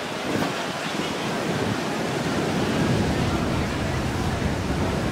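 Ocean surf washing onto a sandy beach, a steady rushing noise, mixed with wind rumbling on the microphone.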